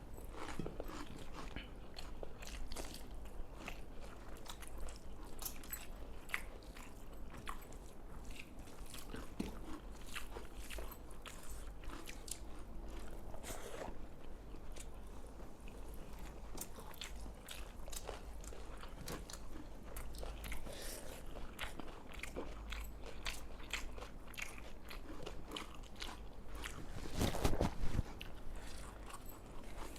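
Close-up chewing and crunching of a meal of rice and spicy pepper chicken, with many small clicks and mouth sounds. A louder burst of sound comes about 27 seconds in.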